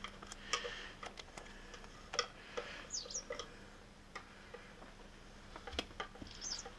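Self-adhesive vinyl wrap film crackling faintly as it is handled and flexed, in scattered small clicks and a few short crinkles, over a faint steady hum.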